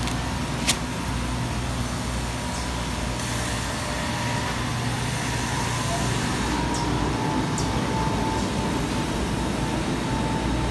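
Steady factory-floor background noise: a continuous low machinery hum under an even hiss, with a faint steady tone, and one sharp click under a second in.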